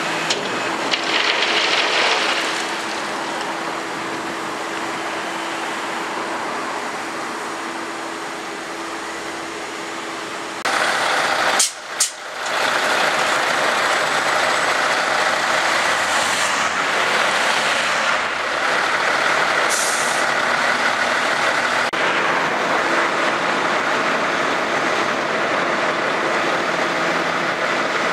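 Heavy diesel trucks running, with a few short air-brake hisses over the engine noise.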